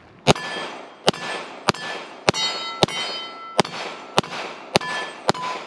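Springfield Prodigy DS 9mm 2011 pistol fired nine times at a steady pace, about two-thirds of a second apart. Most shots are followed by the ringing clang of a steel plate target being hit.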